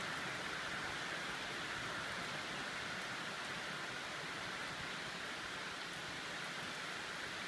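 Rain falling steadily: an even hiss that holds at the same level throughout.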